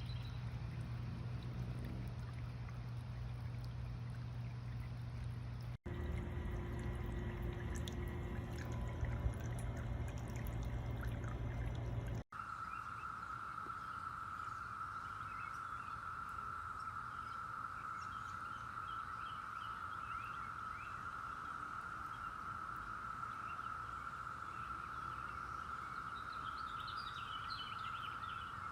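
Water from a small floating solar fountain pump spraying and trickling back into a bird bath. A steady high-pitched tone joins it after the second of two sudden cuts, about twelve seconds in.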